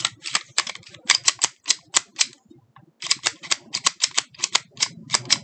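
Stoeger STR-9 pistol's slide clicking and clacking against the frame as it is worked back and forth, hanging up while being put back on during reassembly. Quick sharp clicks about five a second, in two runs with a short pause in the middle.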